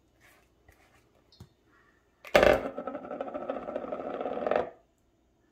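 Stainless steel mixing bowl knocked and scraped against the cutting board as it is handled. A sharp knock about two seconds in leads into a ringing metallic scrape lasting about two seconds, which stops abruptly.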